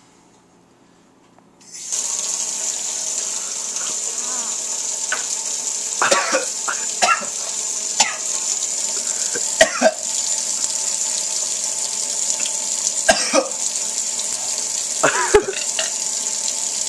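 A kitchen sink tap is turned on about two seconds in and runs steadily, with a person coughing in short bursts several times over it, reacting to a harsh-tasting homemade cough syrup.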